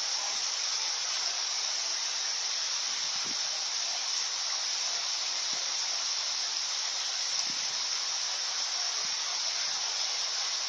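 Heavy rain falling steadily, a dense even hiss, with a few faint knocks.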